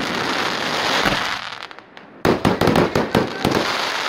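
Aerial firework shells bursting in a display. Crackling haze from burning stars dies down, then about two seconds in a quick run of about ten sharp bangs goes off as a new salvo bursts, with crackling after it.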